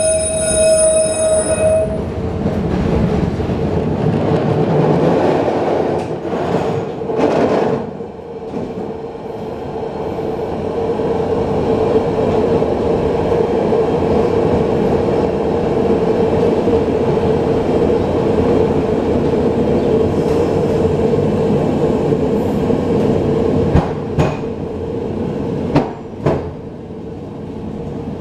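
1928 Peter Witt streetcar heard from inside while running on its rails: a steady rumble under a continuous hum, with a few sharp clacks from the wheels. A steady buzzer-like tone cuts off about two seconds in.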